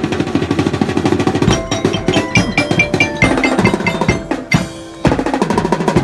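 Marching band playing as it marches: rapid snare drum strokes and rolls under a buzzy melody, with bright, repeated chiming bell notes. The music dips briefly about a second before the end, then picks up again.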